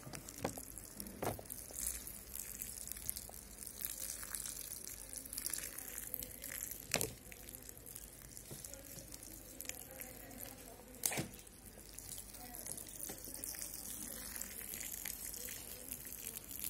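Thin jets of water from holes pierced in a plastic bottle's cap, pattering and trickling onto potting soil and succulent leaf cuttings. A few sharp clicks break in.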